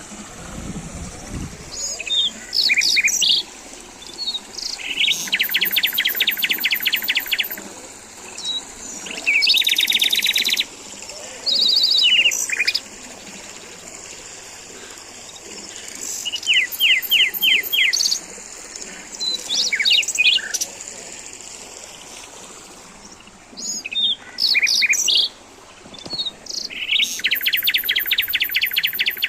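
Wild birds singing and calling: repeated phrases of quick, evenly spaced chirps and short trills, over a steady high-pitched hiss.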